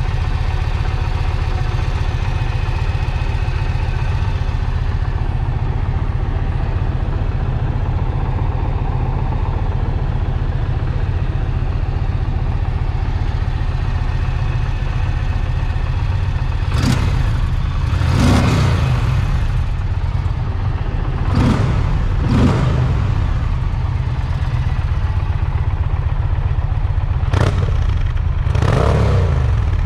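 Indian Challenger's PowerPlus liquid-cooled V-twin idling steadily. Several brief, sharp louder noises come in the second half.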